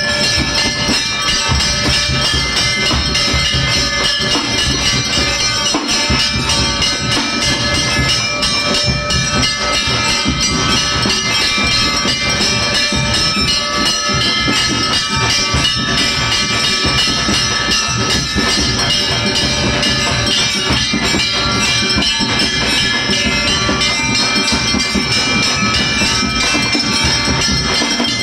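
Temple bells ringing continuously over loud devotional music during an arati, the lamp-waving offering. Dense and unbroken, with many overlapping ringing tones.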